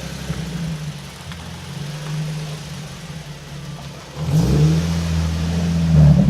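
Nissan 370Z's 3.7-litre V6 engine running at low revs as the car is driven up onto ramps, the throttle opened about four seconds in and the revs held higher while it climbs.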